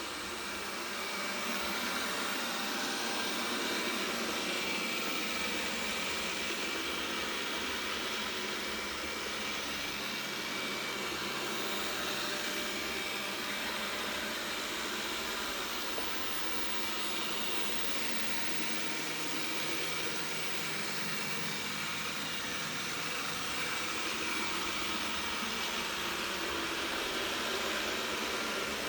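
Roborock S6 robot vacuum running with steady suction noise and a buzz held on a few fixed pitches, the unwanted buzzing noise the owner is showing.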